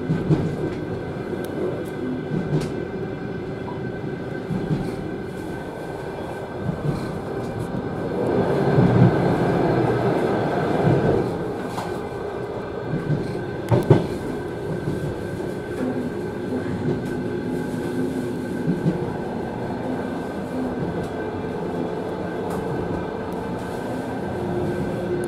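Passenger train carriage running on the rails, heard from inside its end vestibule: a steady rumble of wheels on track, louder for a few seconds about a third of the way in, with two sharp knocks near the middle.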